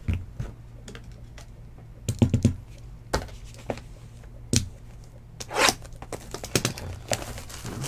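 A cardboard box of trading cards handled on a desk: a string of knocks and taps, a quick cluster of thumps about two seconds in, and a short scraping rustle about five and a half seconds in.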